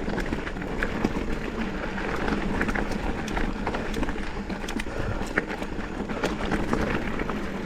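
Mountain bike rolling along a dirt singletrack: steady tyre and trail noise with many small clicks and rattles from the bike over the ground.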